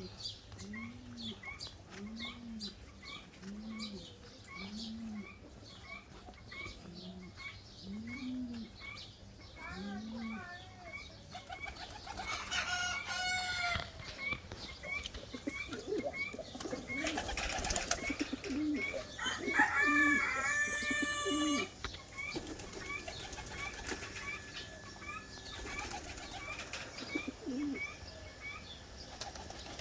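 Farm pigeons and chickens: low cooing about once a second at first, wings flapping, and louder hen calls in the middle. A small high chirp repeats about twice a second throughout.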